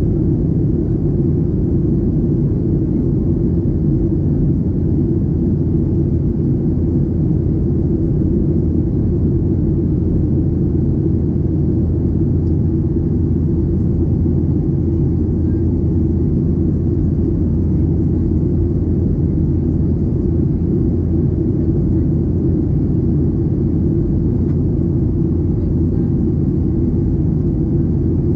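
Steady low rumble of a Boeing 737-800's cabin in flight: its CFM56-7B engines and the airflow, even and unchanging throughout.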